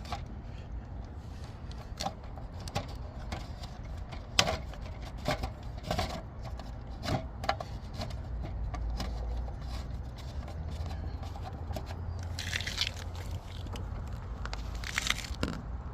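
Plastic hubcap retaining nuts being spun on by hand against a car wheel: scattered light clicks and taps, with two short scraping rustles near the end, over a steady low rumble.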